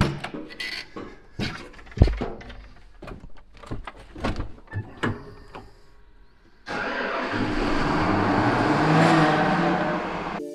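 Knocks and clunks of someone climbing into a Case IH Quadtrac tractor cab, then about two-thirds through the tractor's big diesel engine starts with a sudden loud rush of noise. It runs on, swelling slightly, and cuts off suddenly at the end.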